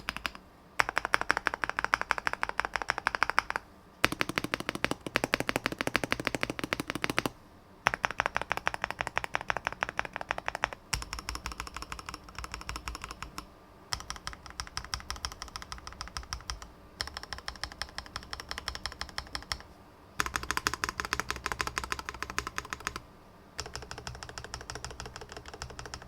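Fast typing on a Chilkey ND-series custom mechanical keyboard: rapid key clicks in runs of about three seconds, with short breaks between runs. The tone shifts from run to run, some brighter and some deeper.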